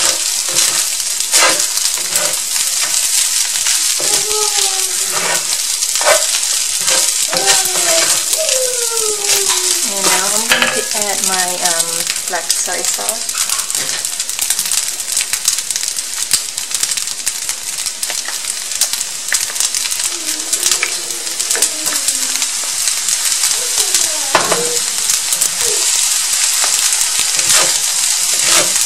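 Fried rice sizzling in a hot cast-iron skillet while a spatula stirs and turns it, with frequent irregular scrapes and knocks of the spatula against the pan.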